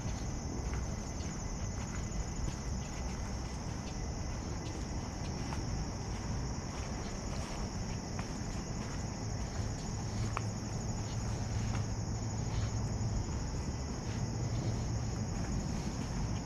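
Insects singing in a steady, unbroken high-pitched chorus, over a low background rumble and faint footsteps on a dirt path.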